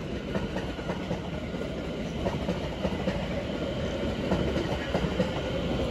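London Overground Class 710 Aventra electric multiple unit running past into the station, a steady rumble of wheels on the rails.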